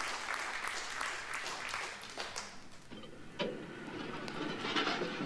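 Scattered applause thinning out. About three and a half seconds in, a vinyl record on a turntable starts sounding, faded up on a mixer, with a low rumbling texture.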